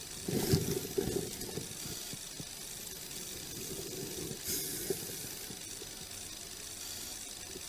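Police patrol car running, a steady low hum, with a cluster of knocks and rustles about half a second in and a brief hiss near the middle.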